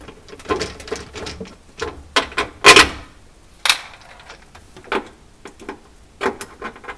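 Scattered clicks and knocks of a screwdriver working at screws in a Sub-Zero BI-36 refrigerator's interior, with parts handled around the drawer rails. The loudest knock comes a little under three seconds in.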